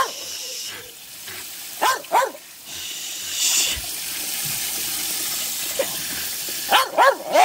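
A small dog giving short high barks, one at the start, two about two seconds in and three in quick succession near the end, over the steady hiss of water spraying from a garden hose nozzle.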